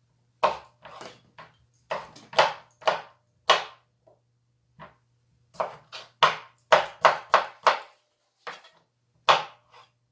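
Kitchen knife chopping potatoes on a cutting board: sharp, uneven knocks in quick bursts, about twenty in all, with a brief pause about halfway through.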